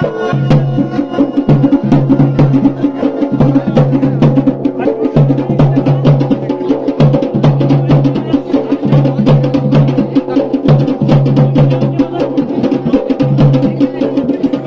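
Instrumental folk music: fast, steady drumming with rapid clicking strokes over a held low bass line.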